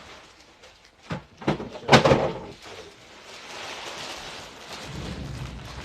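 A few sharp knocks or thuds, about a second to two seconds in, the third and loudest near the two-second mark, followed by a steady low noise.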